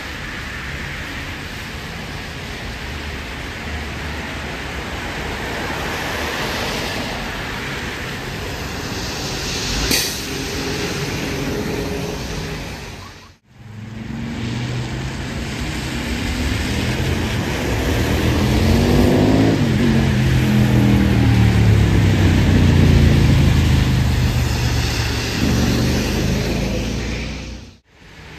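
ZiU-682 KR Ivanovo trolleybuses pulling away from a stop on a wet street. First comes a steady hiss of rain and wet tyres with one sharp click; then, after a cut, the second trolleybus's traction motor whines, rising in pitch as it accelerates.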